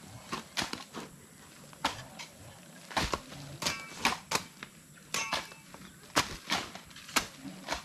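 Several shovels chopping into and scraping soil while the ground is dug and levelled: irregular sharp strikes, two or three a second, a couple of them ringing briefly like metal on stone.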